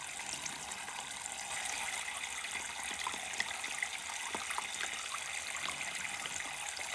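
A thin stream of water running steadily into a miniature toy sink, with small splashes and drips.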